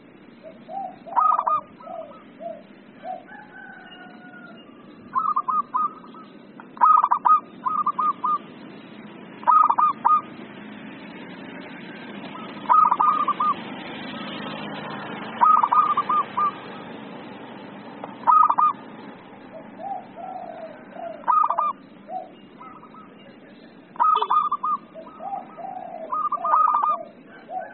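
Zebra dove (perkutut) cooing in its excited song: short bursts of quick staccato notes repeat every two to three seconds. Softer, lower notes follow several of the bursts, over a steady background hiss.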